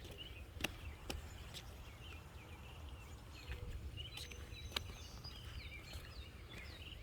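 Quiet outdoor ambience by the water: a steady low rumble, a few sharp clicks, and faint bird chirps and whistles, the clearest about halfway through.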